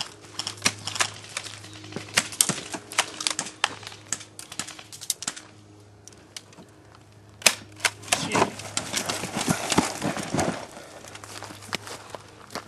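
Airsoft guns firing: sharp, fast clicking shots in irregular bursts. The firing pauses about halfway through, starts again with a sharp crack, and then comes in denser clicks.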